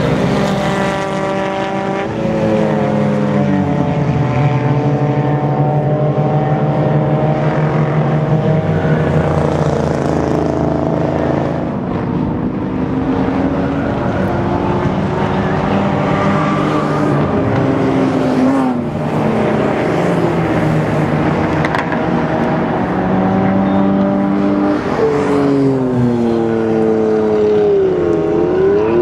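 Engines of small race cars running hard on a circuit, several at once, their pitch climbing and dropping as they accelerate, shift and pass by.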